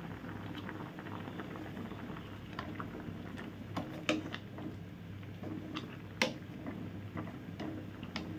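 Water at a rolling boil with bamboo shoots in a metal pot, a steady bubbling. Scattered sharp clicks and light knocks run through it as a spatula stirs, the loudest about four and six seconds in.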